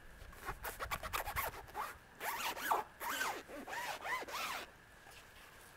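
Zipper of a long soft shotgun case being unzipped in a series of short pulls, ending about a second before the end.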